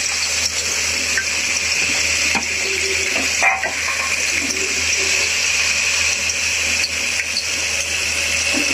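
Gatte (boiled gram-flour dumpling pieces) sizzling steadily as they shallow-fry in hot mustard oil in a nonstick pan, with a single short knock about three and a half seconds in.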